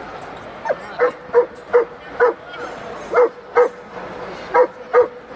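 A dog barking repeatedly: about nine short, sharp barks, many in quick pairs.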